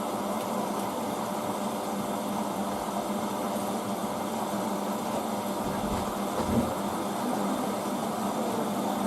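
Hoover DYN9144D3X washing machine running a Coloureds 40 wash with a load of towels: a steady hum and rush, with one low thud about six and a half seconds in.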